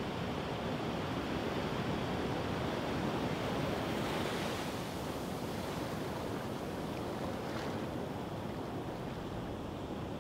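Surf washing up over a sandy beach: a steady rush of shallow waves, swelling a little a few seconds in.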